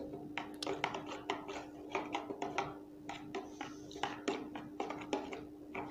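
Small plastic spoon stirring dye into water in a plastic bowl: a string of light, irregular clicks and taps as it knocks against the bowl.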